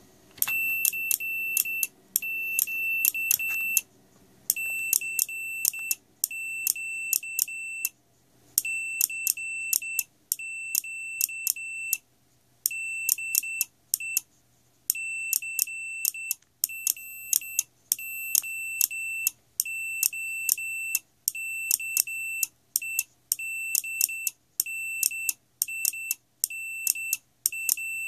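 RadioShack digital multimeter's continuity beeper sounding Morse code as a USB relay closes and opens across its probes, a high-pitched steady beep in short dots and longer dashes with a click from the relay at each keying. It is sending a general call, CQ CQ DE followed by a callsign.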